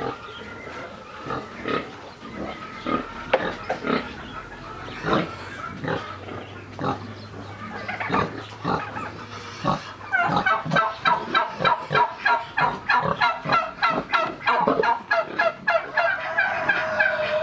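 Pigs grunting and poultry calling on a farm; about ten seconds in, the birds break into a fast, even run of short pitched calls, several a second.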